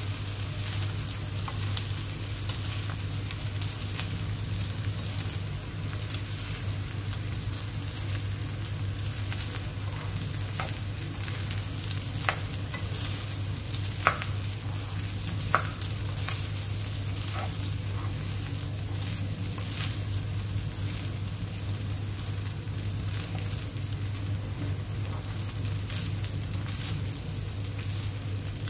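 Fried rice with ham and mixed vegetables sizzling in a nonstick pan as it is stirred and turned with a plastic spatula, a steady hiss with fine crackle over a low hum. Three or four sharp taps of the spatula against the pan come about halfway through.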